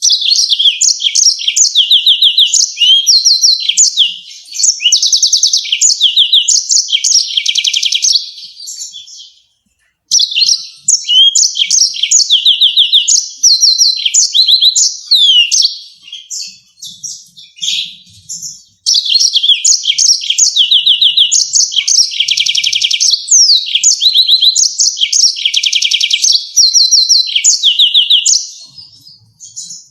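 Yellow-fronted canary singing long, fast bouts of rolling trills and sharp chirps, high-pitched. The song breaks off twice: briefly about a third of the way in, and for a couple of seconds a little past halfway.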